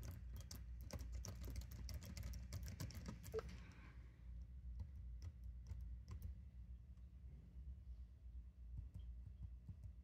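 Typing on laptop keyboards, first a ThinkPad W530's keys and then a Framework 16's: a quick run of keystrokes for the first few seconds, then slower, scattered key presses.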